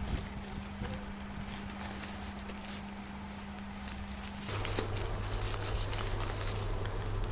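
Light tapping and rustling of packaging being handled, over a steady low electrical hum that shifts to a lower hum with a faint high whine about four and a half seconds in.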